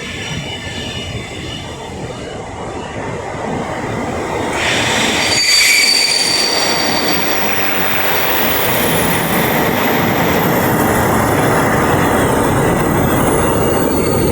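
A train moving through the station, its wheels squealing on the rails with several high tones. The noise of the train swells about four to five seconds in and stays loud.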